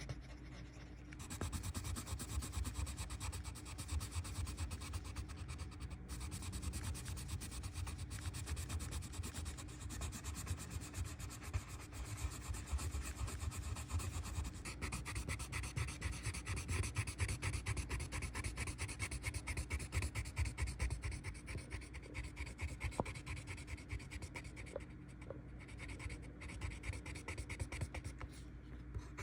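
Colored pencil shading back and forth on paper: a continuous stream of fast, scratchy strokes, with a short pause right at the start.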